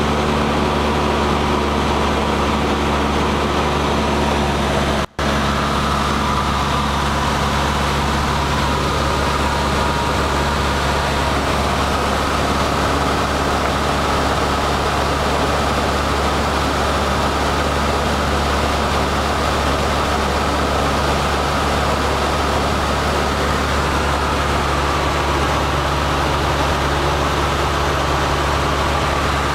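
Cessna 152's four-cylinder Lycoming engine and propeller droning steadily, with airflow noise, as heard inside the small cockpit. The sound cuts out for an instant about five seconds in.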